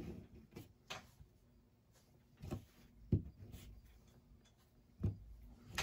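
A few faint, scattered taps and soft rustles as a felt finger puppet is handled, turned and set down on a tabletop, with quiet room tone between them.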